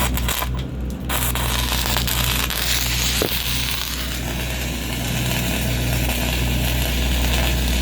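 Welding arc struck about a second in and kept running with a steady crackling hiss during a vertical pass on thin steel plate, with one sharper pop partway through. A steady low hum runs underneath.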